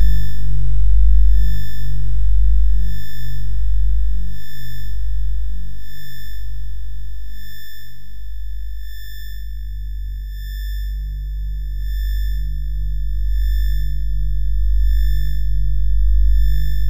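Electronic synthesizer drone music: a deep bass drone and pulsing low tones under thin, steady high sine tones that swell in slow, regular beats. It dips in level through the middle and builds back up near the end.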